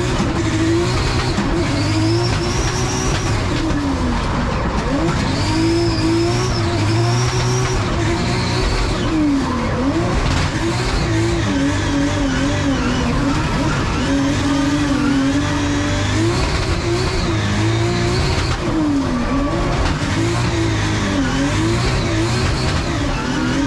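Nissan S14's 2JZ straight-six heard from inside the cabin, held at high revs through a drift, its pitch rising and falling with the throttle and dropping sharply several times. Tyres squeal at times.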